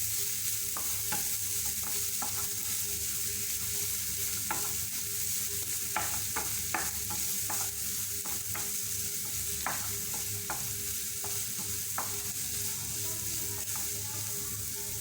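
Chopped onion and garlic sizzling in hot oil in a pan while being sautéed, with a spoon clicking and scraping against the pan now and then as it is stirred.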